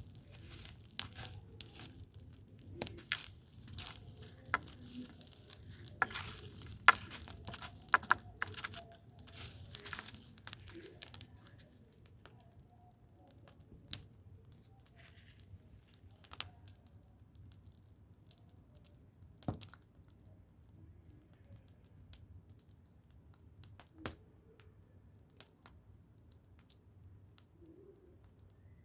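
Dry material crackling and rustling, dense with many sharp snaps for about the first eleven seconds, then thinning to scattered single snaps.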